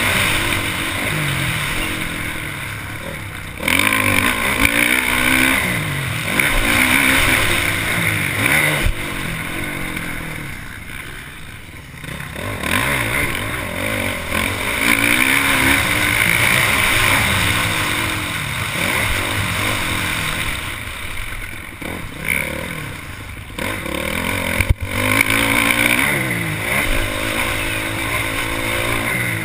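Honda motocross bike's engine, heard from on board, revving hard and dropping back through the gears again and again. The throttle eases off for a moment about eleven seconds in before it pulls hard again.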